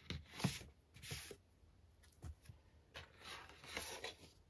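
Soft paper rustling and scraping as the contents of a 7-inch record's picture sleeve are slid out: a record in its paper inner sleeve and a folded paper insert, in a few short scrapes with a longer rustle around three to four seconds in.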